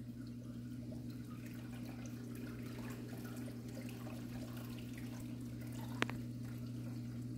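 Steady hum of reef aquarium equipment with water trickling and dripping in the tank. One sharp click comes about six seconds in.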